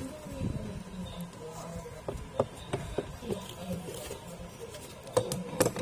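Scattered light clicks and taps, two louder ones near the end, over a low steady hum.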